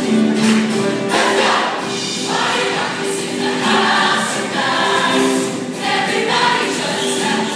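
A large group of mixed voices singing in chorus over upbeat music, holding long notes.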